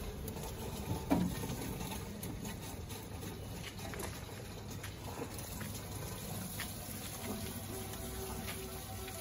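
Rainwater running steadily through wall-mounted rooftop rainwater filters and their PVC downpipes, with a short thump about a second in.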